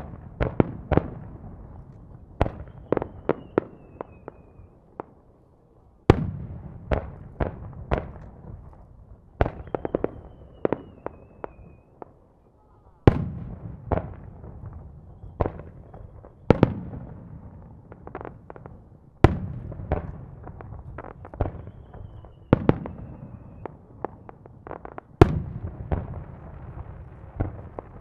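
Aerial firework shells bursting in quick succession. A volley starts about every three seconds with a loud bang, followed by a cluster of smaller sharp reports, and a faint falling whistle is heard three times.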